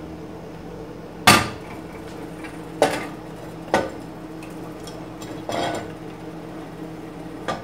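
Sharp knocks of a plate's edge against the rim of a stainless steel pot as chopped onion is scraped into it, five knocks at irregular intervals of about a second, the first the loudest.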